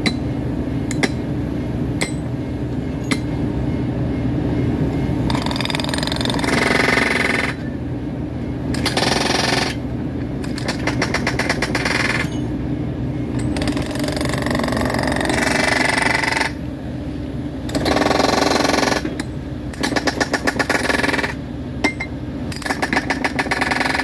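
Hydraulic track tool hammering in repeated bursts of rapid blows against the rail, each burst lasting one to two seconds. Beneath it a small gas-engine hydraulic power unit runs steadily.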